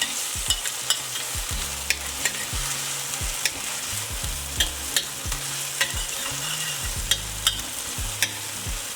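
Chopped ginger, garlic and onion frying in hot grapeseed oil in a pot, sizzling steadily. A utensil stirring them makes irregular clicks and scrapes against the pot.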